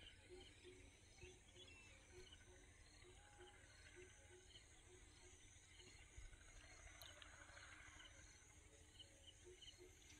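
Near silence: faint pond-side ambience with quiet, evenly repeated insect calls.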